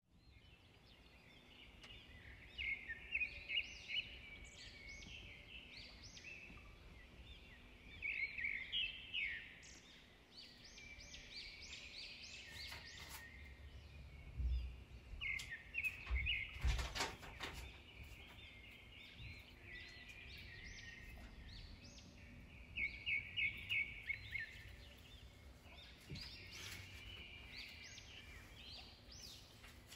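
Small birds chirping, fairly faint, in quick runs of short high notes that come and go. There are a couple of low thumps about halfway through.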